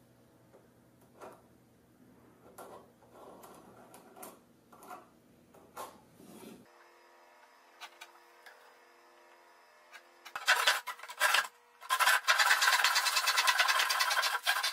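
Faint scratching of a pencil drawn along a metal square on plywood, then, about ten seconds in, a hand saw starts cutting the plywood edge: a few separate strokes, then rapid continuous sawing, which is the loudest sound.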